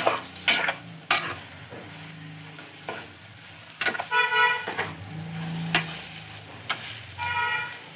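A steel spoon scrapes and knocks against a steel kadai while boiled potato fry is stirred over the heat, with a light sizzle. There are sharp clacks every second or so. Two short horn toots sound in the background, about four and seven seconds in.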